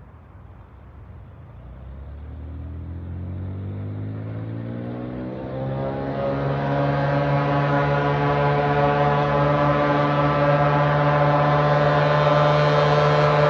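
Floatplane's piston engine and propeller run up to takeoff power. The pitch climbs for the first few seconds, then holds steady at full power while the sound keeps getting louder.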